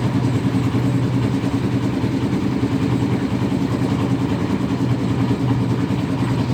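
An engine running steadily at a constant speed, a low even hum with no changes.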